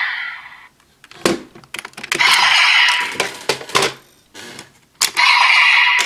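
Plastic clicks and clacks as a DX Desire Driver toy belt has its Magnum Raise Buckle and Core ID pulled out. Between the clicks come two short, thin electronic sound effects from the belt's small speaker, about a second and five seconds in.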